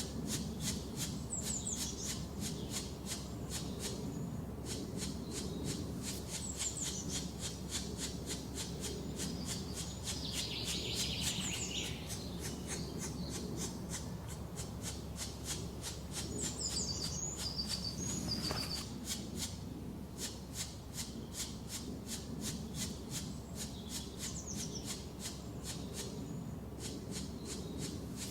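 Woodland ambience: short, high-pitched bird calls now and then, several of them falling series of notes, over a steady low background hiss, with a fast, even high-pitched chirring throughout.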